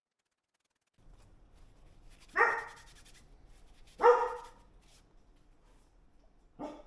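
A dog barking twice, about a second and a half apart, each bark short and falling in pitch.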